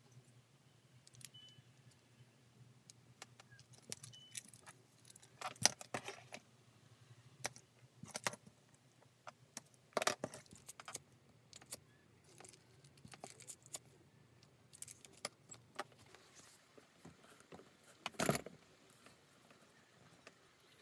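Small hand tools being handled during leather stitching: scattered light clicks and rustles, with a few louder short metallic clatters, one about halfway through and one near the end, over a faint steady low hum.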